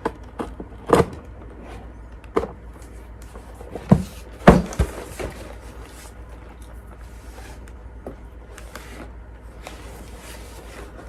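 A sharpener kit's packaging being handled and opened by hand: several sharp knocks and clicks in the first five seconds, the loudest two close together about four and a half seconds in, then softer rustling.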